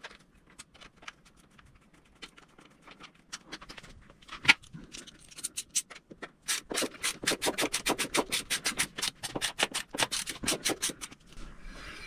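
Hand tools working on a bicycle's fittings: scattered light metallic clicks and one sharp knock, then a fast, even run of clicks, about eight a second, for some four seconds as a wrench works at the rear wheel axle.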